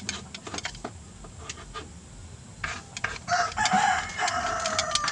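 A rooster crowing once: one long call of about two and a half seconds, starting past the middle and falling in pitch as it ends. Light clicks and taps come before it.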